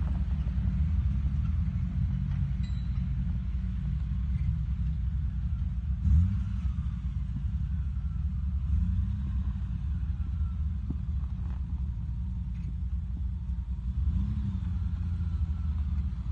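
Off-road vehicle engine rumbling low and steady, revving up briefly about six seconds in and again near fourteen seconds.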